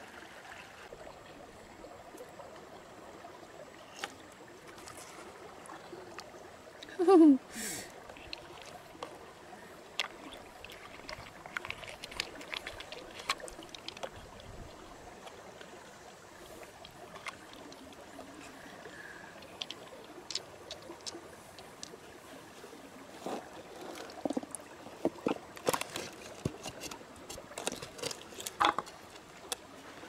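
Shallow stream trickling steadily, with small wet clicks and squelches from hands working through freshwater mussel flesh and shells. These grow busier in the second half. One short falling vocal call comes about a quarter of the way in.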